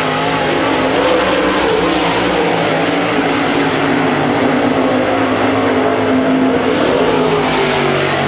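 Dirt super late model race cars' V8 engines running hard around a dirt oval, several at once, their pitch rising and falling as the cars come off and into the turns.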